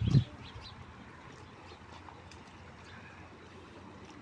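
A single loud low thump right at the start, then the steady running of a shallow river with light splashing from a body moving through the water.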